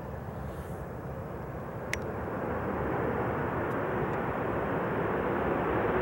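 The CFM56-7 jet engines of a Boeing 737-700 rumble as it touches down, the noise growing louder and brighter from about two seconds in. There is one brief sharp click just before the rise.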